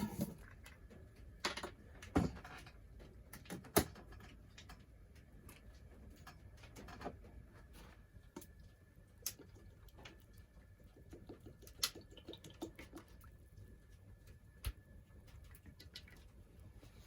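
Scattered light clicks and knocks as cooking gear is handled, a few seconds apart, the loudest in the first four seconds, over a faint steady high tone.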